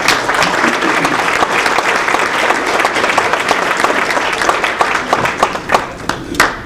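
Audience applause: a room full of people clapping, dense at first and thinning out near the end.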